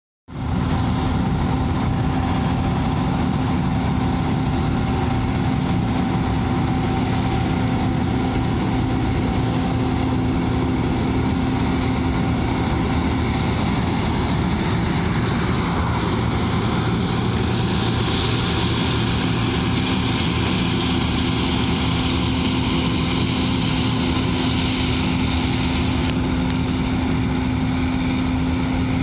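John Deere 9400 running steadily under harvest load, a constant engine-and-machinery drone with a steady hum through it. The high-pitched hiss shifts twice, about two-thirds of the way in and again near the end.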